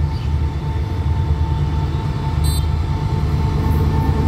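SRT CSR diesel-electric locomotive no. 5207 hauling a passenger train up to a level crossing: a heavy low engine rumble that grows a little louder as it draws level. A brief high chirp sounds about halfway.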